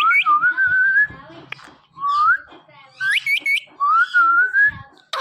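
Parrot whistling a phrase of rising whistles, quick sharp upward chirps and a wavering held note, repeated twice.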